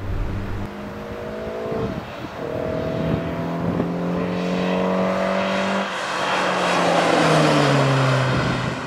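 Lotus Elan's twin-cam four-cylinder engine pulling hard, with a short break in the note about two seconds in, like a gear change, before it climbs again. The car then sweeps past with a rush of road and wind noise, the engine note falling as it goes by.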